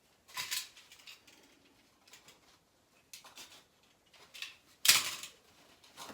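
Glass fiber wallcovering being cut and handled: short scratchy, rustling bursts, the loudest about five seconds in.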